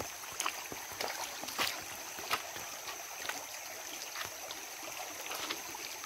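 Shallow stream running over rocks, with scattered light clicks and splashes from footsteps on wet stones and in the water.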